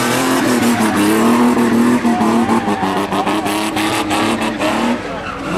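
Nissan 1400 bakkie spinning: its engine held at high revs with a wavering note while the rear tyres squeal and scrub on the dirt. The engine note dips briefly near the end, then picks up again.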